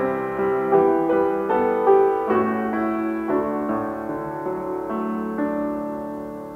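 Baldwin grand piano played slowly, chords struck about once or twice a second and left to ring, growing gradually softer toward the end.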